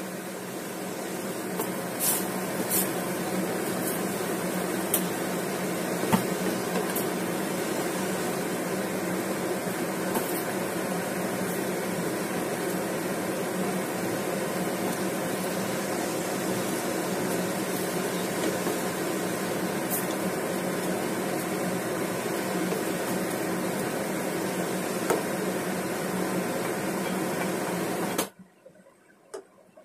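Steady whirring noise at a gas stove where a pot of stew is boiling, with a few sharp knocks of a wooden spatula against the stainless steel pot. The noise cuts off abruptly near the end.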